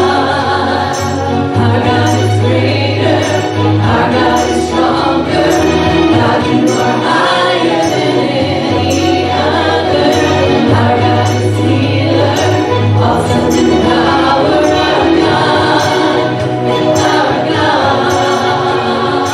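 Worship band playing a contemporary praise song with a steady beat, a sustained bass line and cymbal strikes about once a second, with voices singing along.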